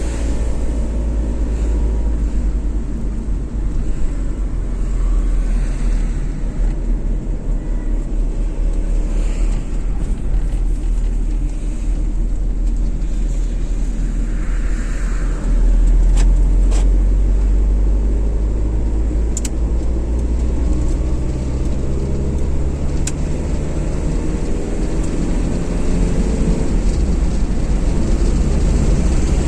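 Car driving on a motorway: steady road, tyre and engine rumble with a deep low drone. It grows a little louder about halfway through, and a few faint clicks come later on.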